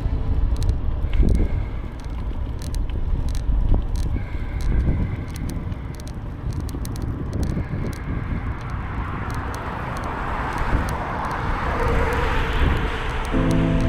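Bicycle ride sound: a steady low rumble of wind and tyres on the path, with scattered light clicks. A hiss swells through the second half and falls away near the end.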